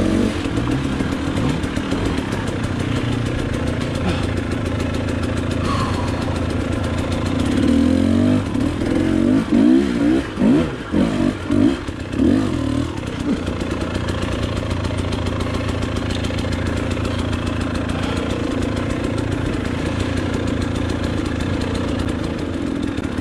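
Enduro dirt bike engine running steadily at low revs, with a run of about half a dozen quick throttle blips in the middle that are the loudest part, before it settles back to a steady run.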